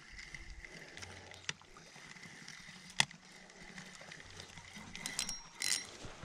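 Quiet handling of a spinning rod and reel in an aluminium canoe, with faint water noise. There are a few light knocks and one sharp click about three seconds in.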